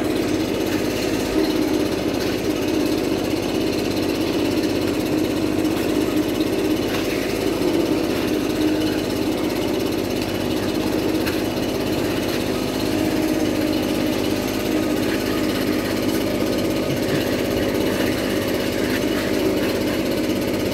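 Leaf blower running steadily at an even pitch and level.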